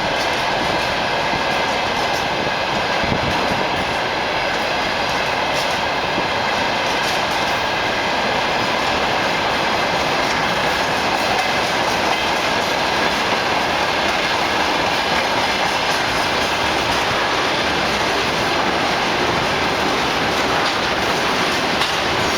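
Freight train wagons rolling past at close range, steady wheel-on-rail rumble with clickety-clack from the rail joints.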